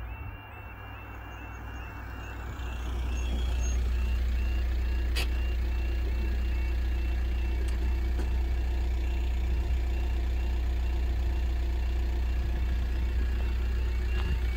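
Level crossing warning alarm repeating its quiet electronic two-tone wail as the half barriers lower. About three seconds in, a loud steady low rumble rises beneath it and stays.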